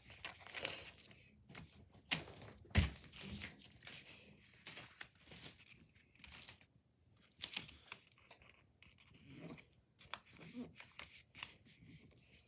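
Sheet of paper being unfolded, refolded and pressed down by hand, with irregular rustles, crinkles and rubbing strokes and a sharper tap about three seconds in.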